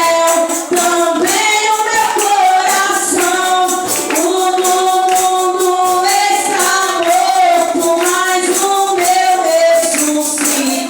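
Several voices singing a lively Pentecostal worship chorus together, with a tambourine jingling in a steady rhythm.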